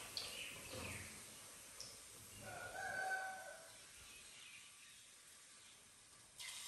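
A rooster crows once, about two and a half seconds in, in one held call. Before it there are a few short, falling bird chirps.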